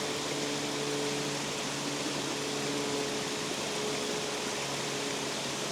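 Steady rush of water pouring over a spillway, with a low steady hum underneath.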